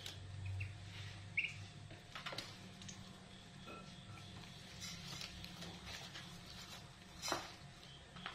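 Three-day-old ducklings peeping softly now and then while they feed, with a few sharp clicks as they peck at the feed and the water bowl.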